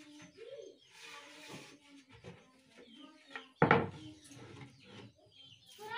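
A plywood top panel laid onto a plywood speaker box cabinet: one loud wooden thud about three and a half seconds in.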